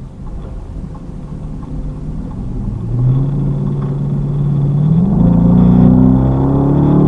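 Dodge Charger's engine accelerating out of a left turn, heard from inside the cabin: a low rumbling engine note that gets louder and climbs in pitch from about three seconds in, stepping up again about two seconds later.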